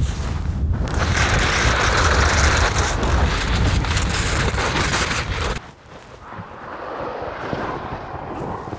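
Rushing noise of a fast downhill ski run: wind buffeting the microphone and skis hissing on hard snow. Loud for about five and a half seconds, then drops suddenly and slowly builds again.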